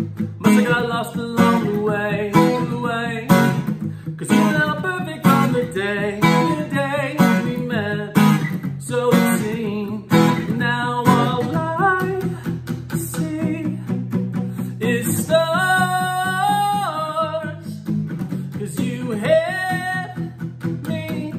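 Acoustic guitar strummed in a steady rhythm, with a man singing over it; he holds long, wavering sung notes a little past the middle and again near the end.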